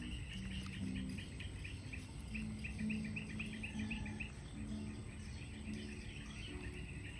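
Background ambience of rapid high-pitched chirping, several chirps a second, over low humming tones that come and go.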